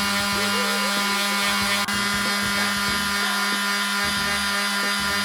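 Electric sander running steadily on wood, a constant motor hum with a strong low tone and hiss above it.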